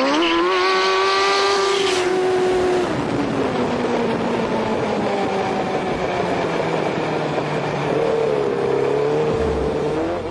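Motorcycle-engined go-kart running hard. The engine note climbs steeply at the start and holds high, drops away about three seconds in and runs lower, then climbs again near the end.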